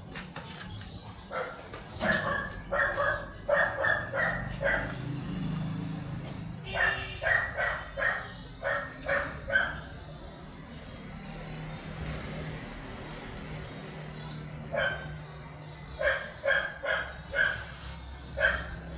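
Dogs barking in three runs of quick barks, each run a few seconds long, with pauses between.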